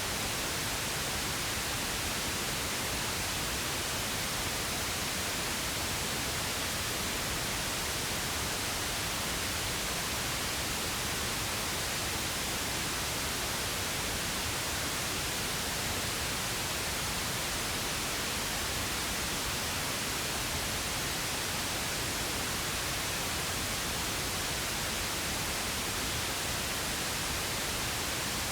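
Synthetic pink noise: a steady, even hiss that does not change in level.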